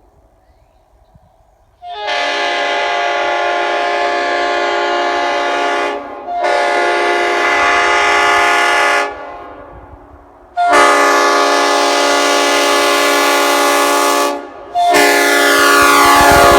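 Leslie RS5T five-chime air horn with RS power chambers, a train horn, sounding a loud chord in four long blasts after about two seconds of quiet. The first three blasts last about three to four seconds each, with short breaks between them, and the last starts near the end.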